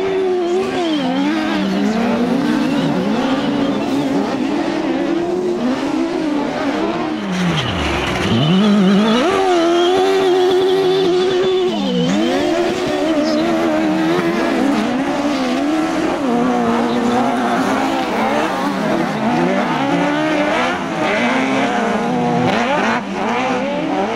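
Engines of racing buggies revving up and down through the turns, with several engines overlapping. The pitch rises and falls over and over, with one deep drop and climb back about eight seconds in.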